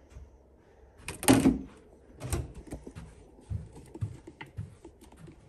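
Handling knocks and footsteps: a loud knock about a second in, another just after two seconds, then lighter knocks and low footfall thuds.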